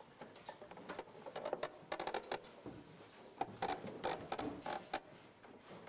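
Sheet music being handled at a piano: faint, irregular paper rustles and small clicks and knocks.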